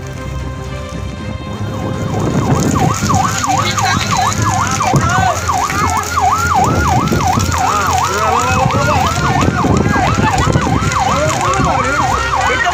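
Emergency vehicle siren in a fast yelp, its pitch sweeping up and down about three times a second. It comes in about two seconds in and grows louder.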